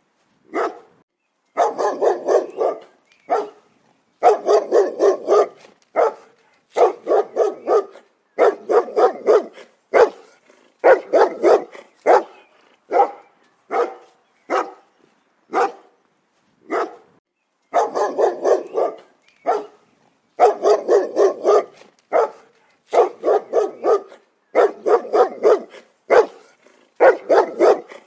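A dog barking loudly and repeatedly, in quick runs of several barks with short pauses between them.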